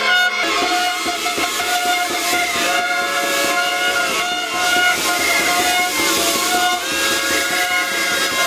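Many air horns blowing at once: overlapping steady blasts at several different pitches, each held for a second or more and then cut off while others start, making a loud dissonant chord.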